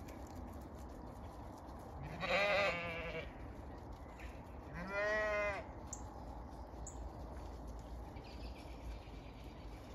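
Zwartbles ewes bleating: two bleats, one about two seconds in with a quavering pitch and a shorter one about five seconds in.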